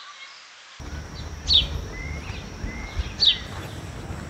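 Outdoor ambience with a bird calling: two short, falling chirps about two seconds apart, with fainter brief notes between them, over a low steady rumble that sets in about a second in.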